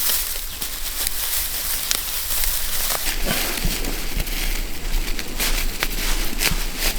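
Dry rice stalks rustling and crackling as they are handled and bundled by hand, with many small sharp snaps.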